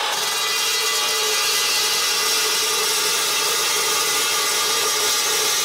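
Metal Devil 14-inch dry-cut metal chop saw running under load, its blade cutting through a piece of metal as a steady, high-pitched grinding whine.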